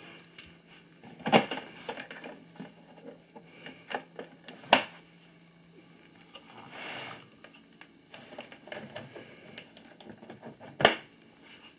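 A hard plastic equipment case being handled by hand: a few scattered sharp clicks and knocks of its fittings, the loudest near the end, with a short rustle partway through.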